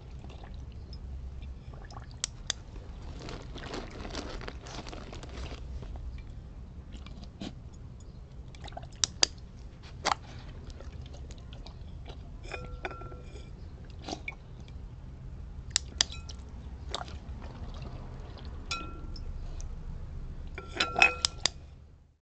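Weimaraner's muzzle in a glass bowl of water, the water bubbling and sloshing, with sharp clinks against the glass bowl that ring briefly, a quick cluster of them near the end.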